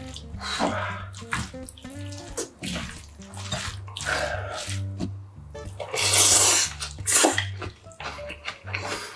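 Wooden utensil mixing sauce-coated rice and shredded vegetables in a ceramic bowl: repeated wet squelching and light clicks against the bowl, with a louder wet burst about six seconds in. Background music with a steady bass beat plays under it.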